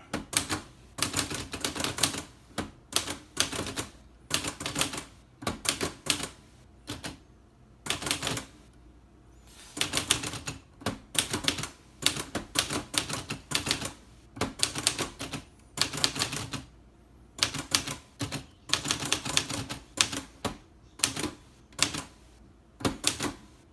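1966 Olivetti Lettera 32 portable manual typewriter being typed on: bursts of quick key and typebar strikes, several a second, broken by short pauses between words.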